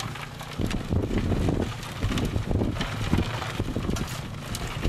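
Wind buffeting the microphone in uneven gusts, with a low rumble underneath.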